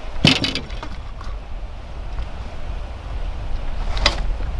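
Wind buffeting the microphone with a steady low rumble. Two short, sharp handling knocks or splashes break through it, one just after the start and one near the end.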